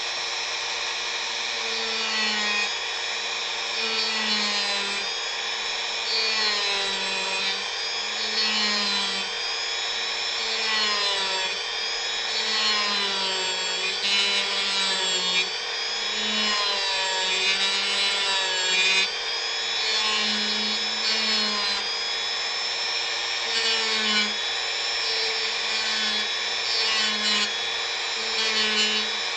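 Dremel rotary tool running at high speed against wood, its whine dipping in pitch and recovering again and again as the bit bears on the wood and eases off.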